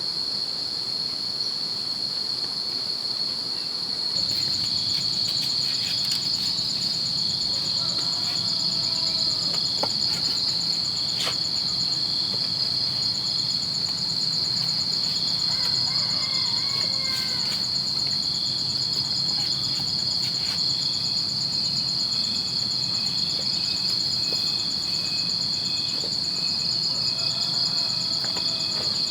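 Insects chirring in a steady, high-pitched chorus, with a second, faster pulsing trill joining about four seconds in. A few faint short calls sound now and then behind it.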